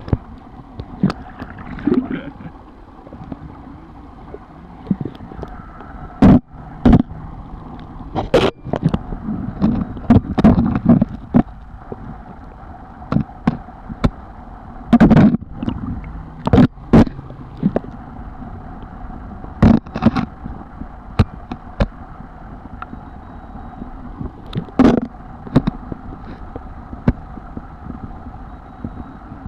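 Steady rush of river water, with many irregular sharp knocks and thumps.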